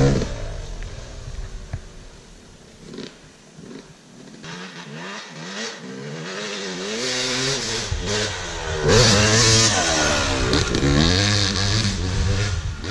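Yamaha YZ dirt bike engine revving hard as it pulls away and fading within the first couple of seconds. It then grows louder again as the bike is ridden up a rutted hill, the revs rising and falling over and over with the gear changes and throttle, loudest over the last few seconds.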